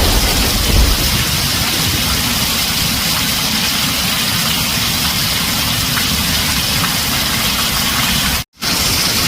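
Heavy rain pouring steadily on a tin roof, an even hiss over a low drumming rumble, with the tail of a thunder rumble dying away in the first second. The sound cuts out completely for a fraction of a second near the end, then resumes.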